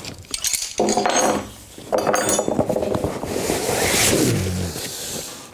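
Metal tyre levers clinking and clattering against each other as they are pulled out of a fabric tool pack and put down on a wooden table, with the pack rustling.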